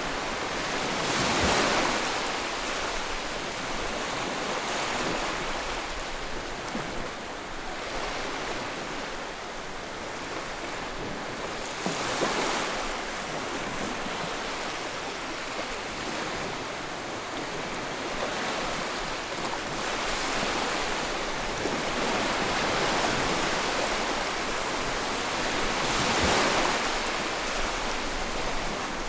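Sea waves breaking on the shore in a continuous wash of surf, with the louder crashes swelling every several seconds.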